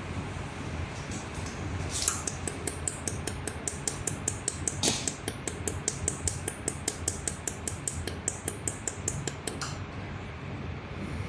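Jewelry laser welding machine firing a rapid series of pulses, sharp snapping ticks about four to five a second for several seconds, over the steady hum of the machine's cooling.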